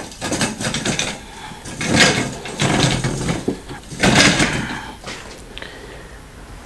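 Metal parts of a manual screen-printing press being handled, with sliding and scraping four times in the first five seconds, as the press is worked to flash-cure the white print.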